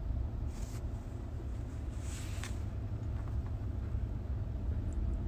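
Steady low rumble of a car's cabin on the road, with two brief hissing sounds about half a second and two seconds in.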